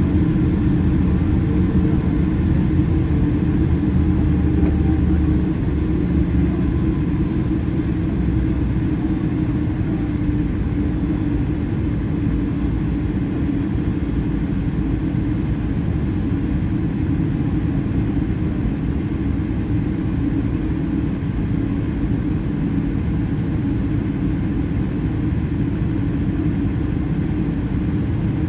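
Steady low rumble inside the cabin of a Boeing 777-300 taxiing, its Rolls-Royce Trent 800 engines at low taxi thrust. It is a little louder for the first five or six seconds, then holds even.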